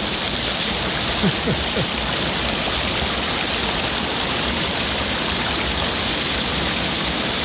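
Small rocky mountain brook rushing steadily over stones, with a small cascade spilling into a pool.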